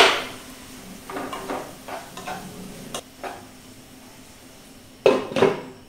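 Diced snake gourd and onion being stirred in a non-stick pan, with short scraping strokes of the utensil against the pan. A sharp knock comes right at the start, and two louder metal clanks come about a second before the end.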